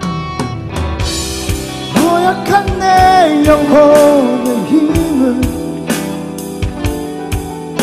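A young male vocalist singing a Korean-language rock ballad over a live band, with drums keeping a steady beat under sustained accompaniment. A long sung phrase starts about two seconds in and fades out a little past the middle.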